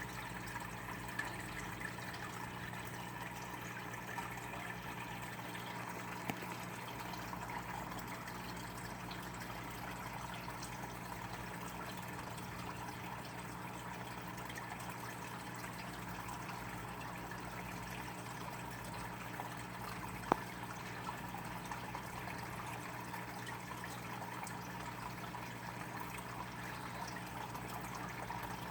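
Steady low hum under a rushing, water-like hiss, with a few faint clicks, the sharpest about twenty seconds in.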